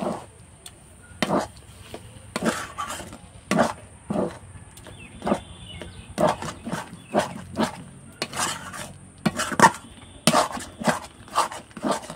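A spatula stirring a thick semolina mixture in a kadai, scraping and knocking against the pan in short, irregular strokes about once or twice a second.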